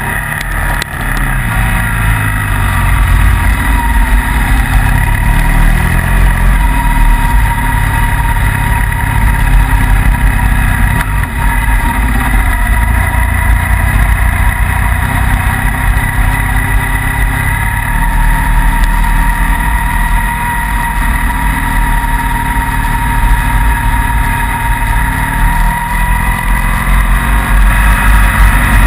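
Motorcycle engine of a sidecar outfit running under load on an uphill snowy road, its pitch rising and falling with the throttle, with a steady high whine alongside.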